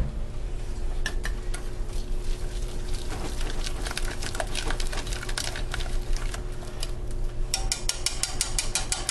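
Wire whisk stirring thick cream of broccoli soup in a stainless steel saucepan, its wires clicking and scraping against the pan. The strokes turn faster and more regular over the last second and a half.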